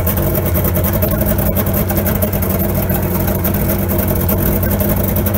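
Outboard motor running steadily, its exhaust piped from the lower unit through stovepipe into a water-filled bucket that muffles it.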